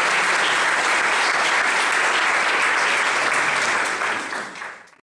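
A small audience applauding steadily, then the clapping dies away near the end.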